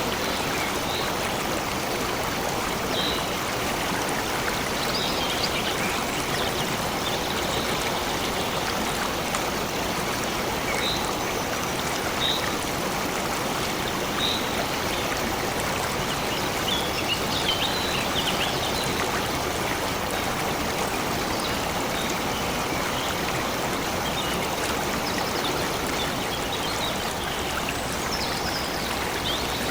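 Stream of water flowing steadily, with short, faint bird chirps now and then.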